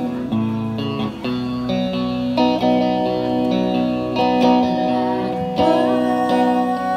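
Guitar playing, plucked notes and chords ringing on with a change of chord every second or two.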